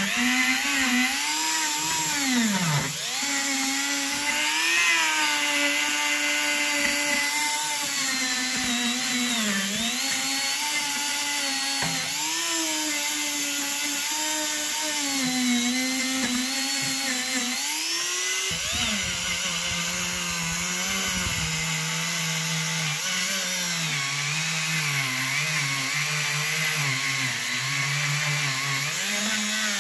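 Handheld rotary tool whining as it works a small bit and then a brass wire brush over cast iron, its pitch wavering and dipping as the bit bears on the metal. About 18 seconds in the motor drops to a lower, steadier pitch.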